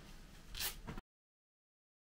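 Faint room tone with one brief soft rustle, then complete silence from about a second in.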